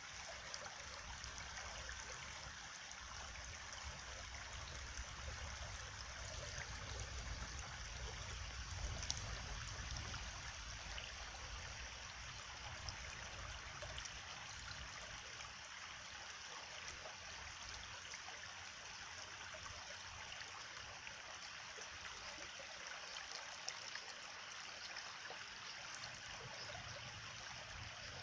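Steady rush of running water from a flowing stream, with a low rumble underneath that swells and eases.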